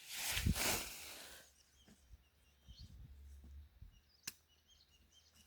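A loud rustling swish of leafy potato stems being cut down and handled, lasting about a second and a half. Quieter handling follows, with a single sharp click about four seconds in.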